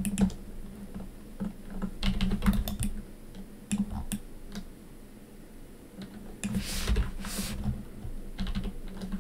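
Computer keyboard keystrokes and clicks at irregular intervals, single taps and short runs, as shortcut keys are pressed in 3D modelling software. About six and a half seconds in come two longer hissing sounds.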